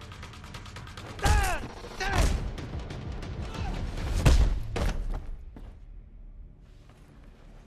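Fight sound effects: heavy punch and kick impacts a little after one second, at about two seconds and, loudest, past four seconds, with short shouted grunts at the first two blows. The fight sounds die away over the last two seconds.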